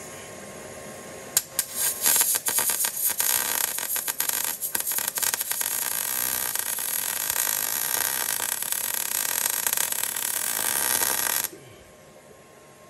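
Wire-feed (MIG) welder arc on steel: it sputters on about a second and a half in, then crackles steadily while a bead is laid on the chassis rail, and cuts off abruptly near the end.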